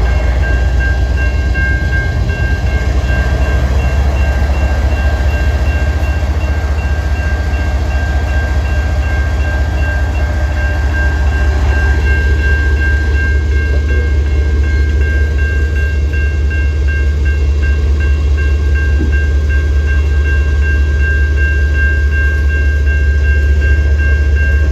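CN intermodal freight train: a steady low rumble with a continuous high-pitched whine over it.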